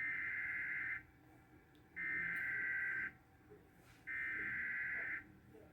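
Emergency Alert System SAME header on NOAA Weather Radio: three bursts of buzzy digital data tones, each about a second long and about a second apart. It encodes the start of a severe thunderstorm warning.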